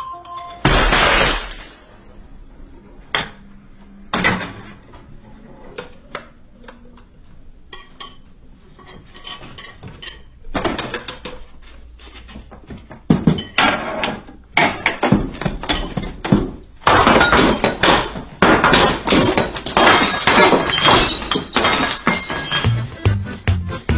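A homemade chain-reaction (Rube Goldberg) machine running: one loud crash about a second in, then scattered knocks and clicks of parts tipping and rolling, building into a dense clatter of objects hitting and falling through the second half.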